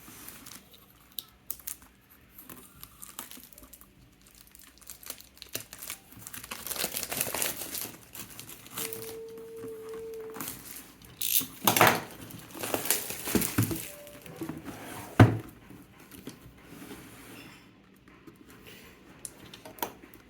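Product packaging being handled during an unboxing: crinkling and rustling with scattered clicks and a few sharp knocks.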